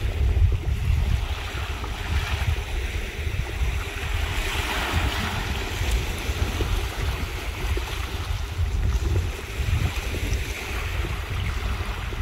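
Surf washing on the shore with wind buffeting the microphone in a heavy, uneven rumble; the wash of a wave swells about four to six seconds in.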